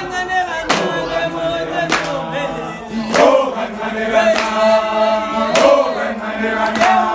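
Group of young men singing together without instruments, with a handclap on a slow steady beat about once every second and a bit.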